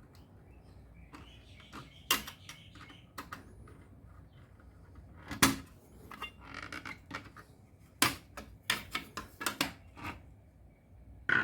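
Irregular clicks and knocks of small hard objects being handled, the loudest about five seconds in and at eight seconds, with a quick run of taps just after.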